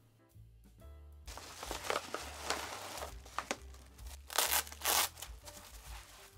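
Plastic bubble-wrap mailer crinkling as hands handle and unwrap it, starting about a second in, with the loudest crackles around four and five seconds in. Background music plays under it.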